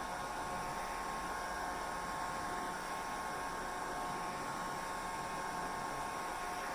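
Hair dryer running steadily: an even rush of blown air with a constant whine in the upper-middle pitch range.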